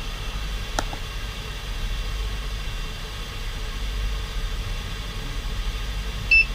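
UP Plus 2 3D printer running with a steady low hum while its heated nozzle extrudes filament, with a single click about a second in. Near the end it gives one short, high beep, the signal that extrusion is done and the printer is ready to print.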